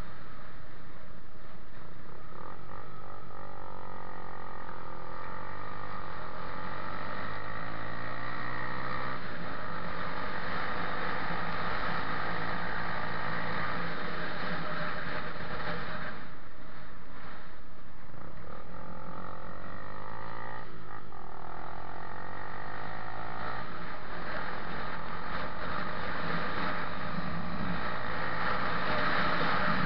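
Onboard sound of a motorcycle engine running along a road, its note rising and falling with the throttle and easing off briefly about halfway through, with wind rushing over the microphone.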